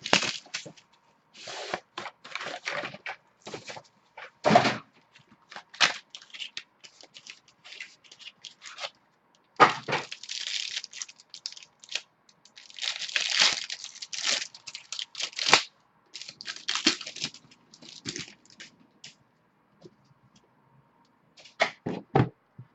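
Plastic wrap and card-pack wrappers tearing and crinkling as a box of Absolute football trading cards is opened and its packs ripped open. It comes in irregular bursts, with longer stretches of tearing about ten seconds in and again from about thirteen to fifteen seconds.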